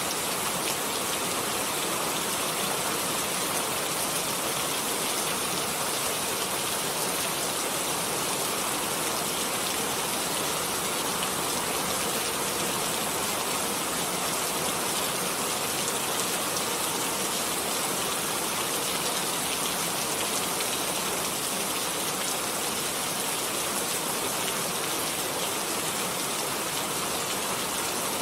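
Steady rain falling, an even hiss of many drops with no thunder or other events.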